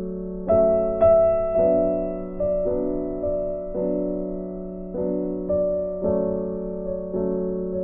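Background piano music: single notes struck about twice a second, each fading away, over held low chords.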